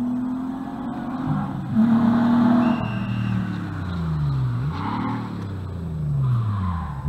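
A rally car's engine running hard on the stage; its note holds steady at first, then falls twice in the second half and picks up sharply again each time, as the driver lifts and gets back on the throttle.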